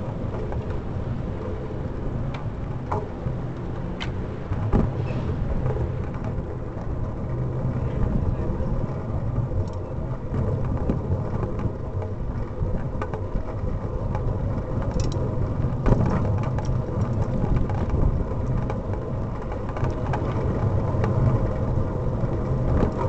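Steady low rumble of a bicycle being ridden on a road, from wind on the microphone and tyres rolling on the tarmac, with a few sharp clicks and knocks from bumps.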